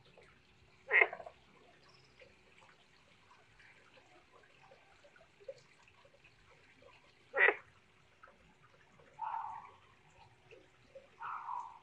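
Short animal calls: two loud, sharp ones about six seconds apart and a few softer ones near the end, over the faint bubbling of a small pond fountain.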